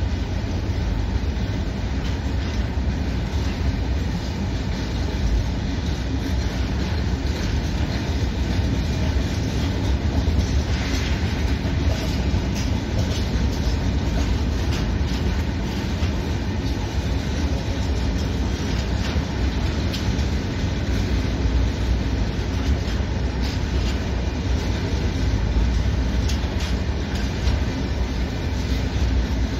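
Freight train of hopper wagons rolling past at close range: a steady rumble of wheels on rail, with scattered clicks and clatter as the wheels pass over the rail joints.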